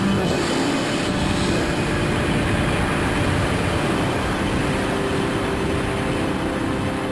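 Steady rushing roar of air over a skydiver's pressure suit in high-altitude freefall, with a steady low hum running under it.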